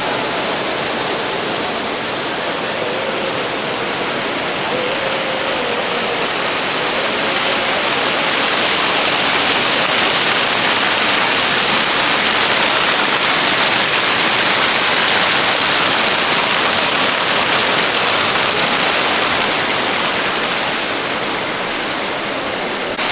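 Indoor fountain splashing: a steady rush of falling water that swells slightly through the middle and eases near the end.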